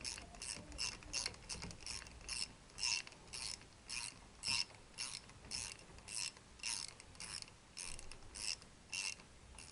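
Ratcheting ring spanner clicking about twice a second as it is swung back and forth, running a big-end nut down a connecting-rod bolt on a Triumph T120 crankshaft.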